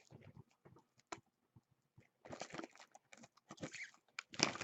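Trading-card packaging being opened by hand: small clicks and taps, then plastic wrap crinkling and tearing from about two seconds in.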